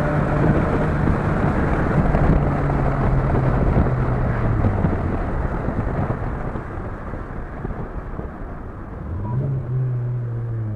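A Chevrolet Vectra 2.2 8V four-cylinder with a free-flowing sport exhaust (no catalytic converter, a straight pipe and a big muffler with a 3-inch tip) going by on the road. Its exhaust note and the road noise are loud at first, then the engine tone slowly drops in pitch and fades as the car moves away. About nine seconds in, an engine note rises and then falls again as a car comes past.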